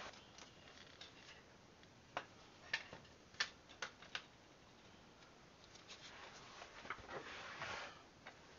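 Faint handling noises: a handful of sharp clicks and taps about two to four seconds in, then softer clicks and a brief rustle near the end, as of small tools and parts being picked up and set down while someone rummages for a part.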